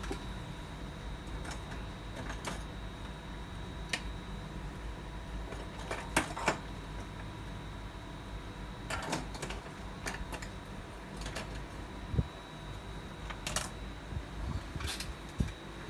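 Irregular light clicks and taps, about a dozen scattered through, with a couple of duller thuds near the end, over a steady low hum and a faint steady high whine.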